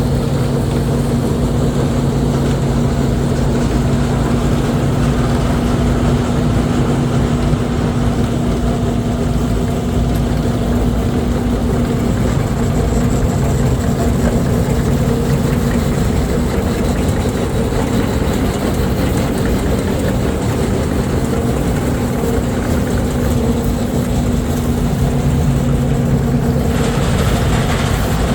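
Diesel engine of heavy farm machinery running at a steady speed, a continuous loud drone with mechanical rumble. Its hum weakens in the middle and comes back, and the sound gets brighter a second or so before the end.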